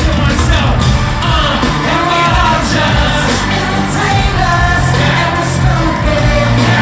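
Live pop music from a stadium concert sound system: a singing voice over a loud, sustained bass.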